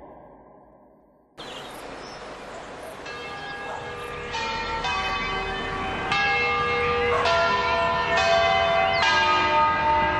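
Church tower bells ringing, several bells of different pitches struck one after another about once a second. Their ringing overlaps and builds in loudness from about three seconds in.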